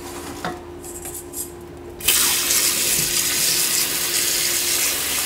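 Kitchen tap running into a stainless steel pot of raw meat pieces, filling it with water for stock; the water starts about two seconds in and runs steadily.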